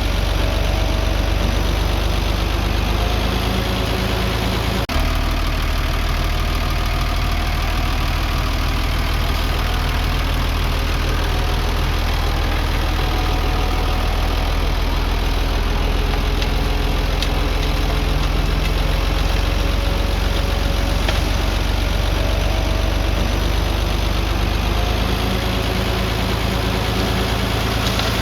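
Diesel engine of heavy earth-moving equipment running steadily, deep and low-pitched, with one brief break in the sound about five seconds in.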